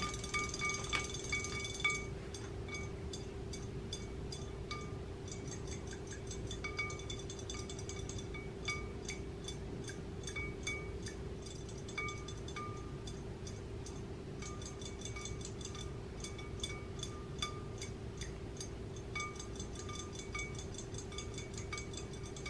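Background music of light, bell-like chiming notes played one after another over a steady held tone.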